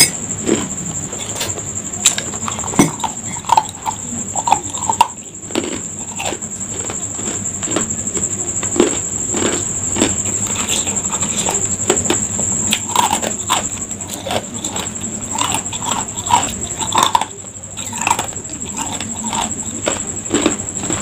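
Ice cubes being crunched and chewed close to the microphone: a run of irregular crunches and cracks.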